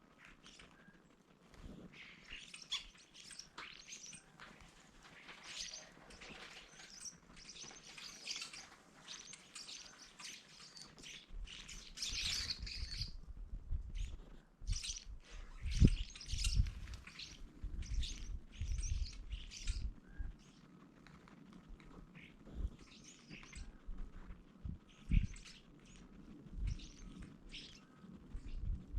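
Many small birds chirping and tweeting in quick, overlapping calls. From about a third of the way in, irregular low thuds and rumbles join them, with the loudest thud about halfway through.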